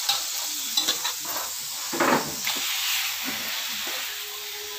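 Pork liver sizzling in oil in an aluminium wok while a metal spoon stirs and clinks against the pan. About two seconds in there is a louder burst of sizzling as raw pork cubes go into the hot wok.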